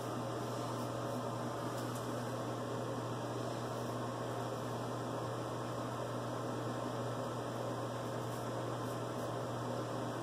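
Steady electrical hum with hiss, and faint brief scrapes of a vintage Frederick Reynolds safety razor cutting stubble against the grain.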